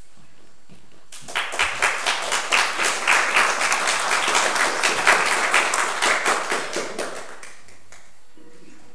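Audience applauding, beginning about a second in and dying away near the end.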